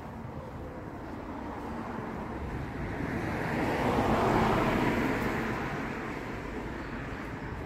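A car driving past close by: its tyre and engine noise swells to a peak about halfway through, then fades away.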